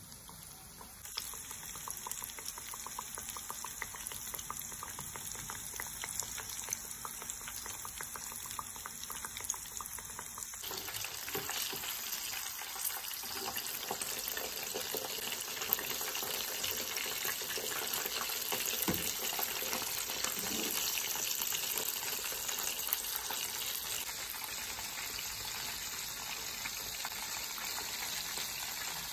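Flour-coated chicken pieces deep-frying in hot oil in a pan: a steady sizzle with dense crackling. It grows louder about ten seconds in.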